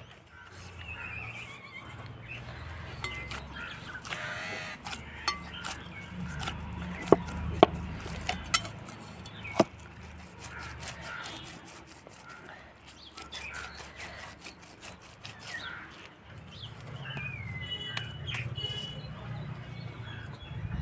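Birds chirping and calling in the background. A few sharp knocks come in the middle, from dough being kneaded in a steel bowl on a wooden board.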